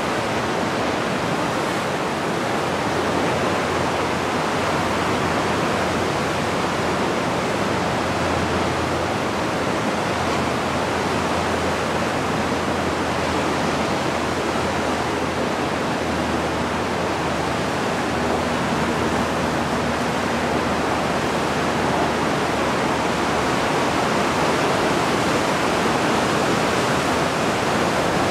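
Ocean surf breaking over a rocky shore: an even, unbroken wash of noise with no single wave crash standing out.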